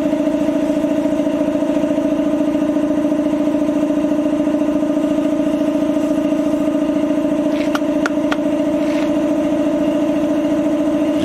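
Power sander motor running at a steady pitch while sanding dried body filler, with a few light clicks about eight seconds in.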